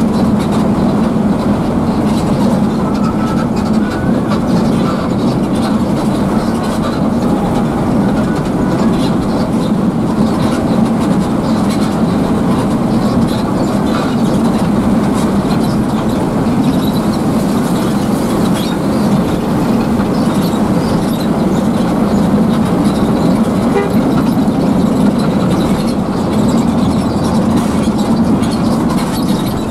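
Steady drone of a coach cruising at speed, heard inside the cabin: low engine hum mixed with tyre and road noise, even in level throughout.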